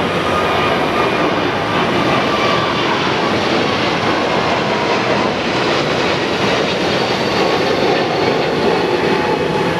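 Jet airliner engines running: a steady rushing noise with a faint whine on top.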